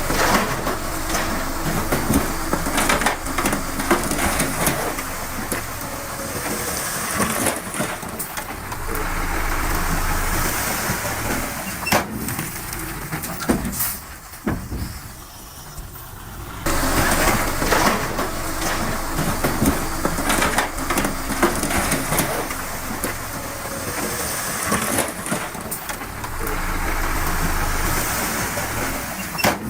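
Heavy earthmoving machinery at work: an engine running under load with scattered knocks and crunches. It drops quieter for a couple of seconds about halfway, then picks up again suddenly.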